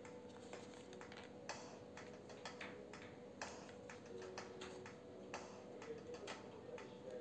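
Faint, irregular small clicks and taps, a few per second, from handling wireless earphones and their case or packaging.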